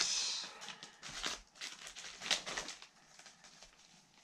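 Paper sticker sheets rustling and crinkling as they are handled over a cardboard box, with a few small clicks and taps. It dies down to quiet handling near the end.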